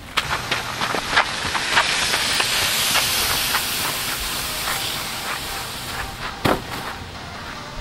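Wooden pallet shoved across loose gravel: a continuous scraping hiss with many small stones clicking and crunching, swelling toward the middle and easing later, with one sharp knock near the end.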